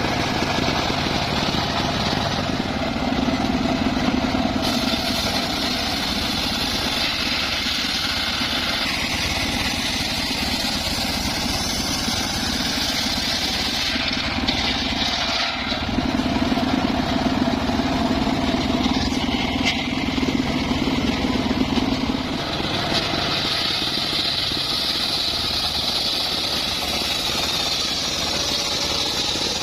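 Engine-driven homemade circular sawmill running steadily while its blade saws through a log. The pitch of the cut shifts over the stretch: a low hum strengthens twice, then a high whine sets in near the end.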